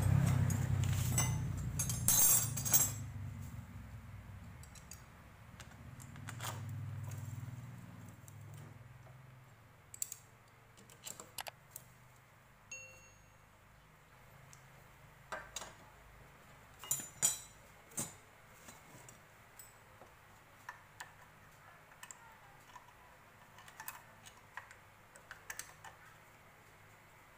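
A low rumble with rattling fades out over the first few seconds. After that come scattered light clicks and metallic clinks of hand tools and parts being handled on a motorcycle engine.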